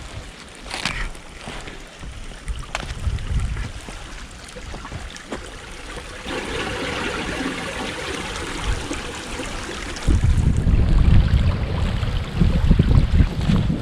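A woodland stream running. About ten seconds in, wind buffets the microphone with a loud low rumble.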